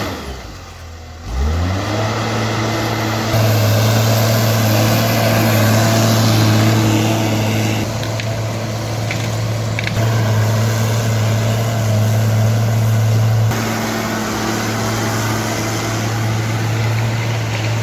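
Heavy diesel engine running steadily under load, a low drone with a steady pitch that shifts in level from shot to shot.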